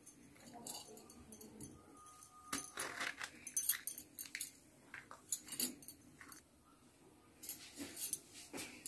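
Light, irregular clicks and clinks from a small knife slitting green chillies lengthwise over a plastic chopping board, with hands handling the chillies; there is a short pause about two-thirds of the way through.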